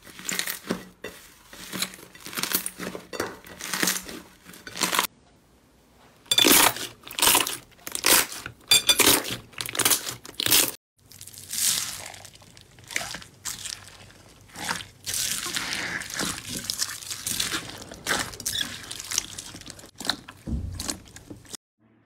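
Hands kneading and squeezing slime, giving fast crackling clicks and squelches as trapped air pops. Later, clear slime packed with foam beads (floam) is pressed, crunching and crackling. There are two brief silences where one clip gives way to the next.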